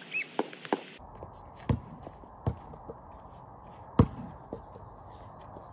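Basketball bouncing on a concrete driveway: single sharp thuds at uneven gaps, the loudest about four seconds in.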